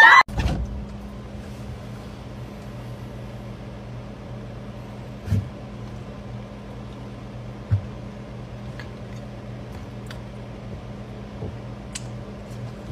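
Steady low hum of an open refrigerator, with two soft low thumps a couple of seconds apart.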